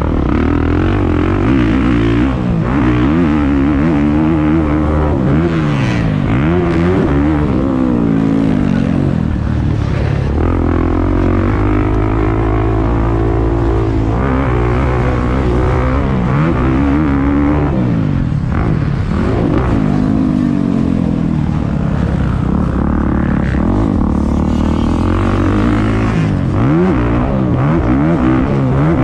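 Motocross dirt bike engine revving hard and easing off again and again as the rider works the throttle and gears around the track, the pitch rising and falling every second or two, heard from the rider's helmet.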